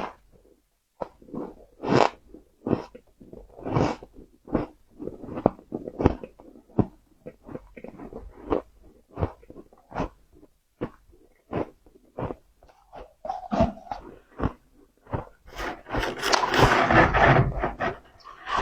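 Powdery freezer frost crunched and chewed in the mouth: a quick run of short, crisp crunches, two or three a second, with a longer, denser crunching stretch near the end.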